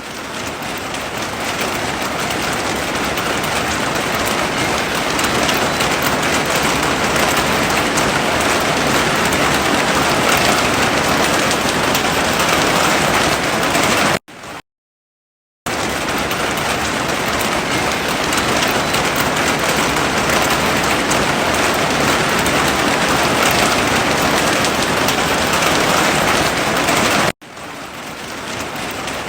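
Heavy rain falling steadily as a dense, even hiss. It cuts out to silence for about a second about halfway through, then returns at full strength. Near the end it dips abruptly and swells back in.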